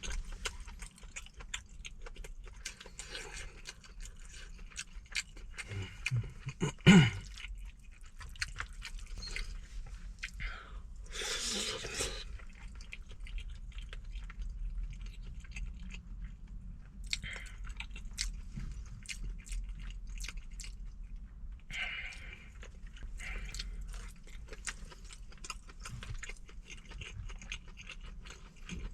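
Close-up eating sounds: a person chewing rice mixed with braised chicken, with many small wet mouth clicks throughout. A brief loud low sound comes about seven seconds in and a breathy rush about eleven seconds in.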